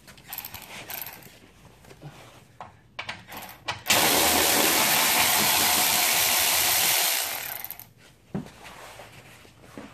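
Cordless power tool running in one steady burst of about three and a half seconds, then tapering off, as it backs a 10 mm bolt out of the car's underbody splash shield. A few small clicks and knocks of handling come before it.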